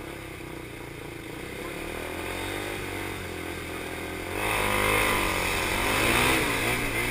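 KTM Duke 390 single-cylinder motorcycle engines idling on a start grid. About four seconds in they are revved hard as the bikes launch and accelerate, the pitch rising and dipping as they pull away.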